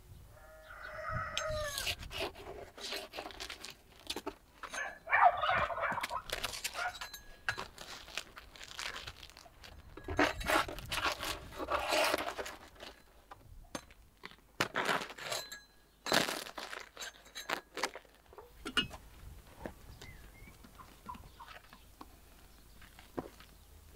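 Chickens: a rooster crowing once near the start and hens clucking, with several short noisy bursts of scraping in between.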